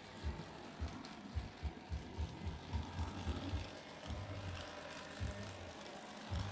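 N-scale model train, a steam locomotive with coaches, running on the layout's track: a low running rumble with an uneven string of soft knocks, at times about four a second.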